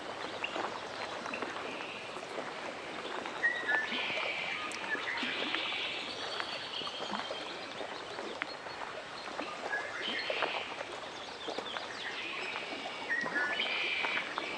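Lakeside nature ambience: small birds chirping in several short bursts over a steady wash of lapping water.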